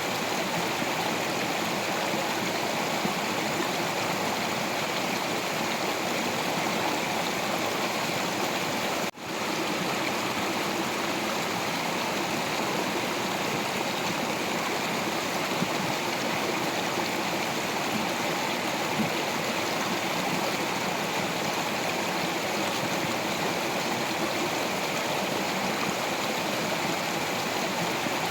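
Stream of water flowing over rocks: a steady, even rushing and gurgling that breaks off for an instant about nine seconds in.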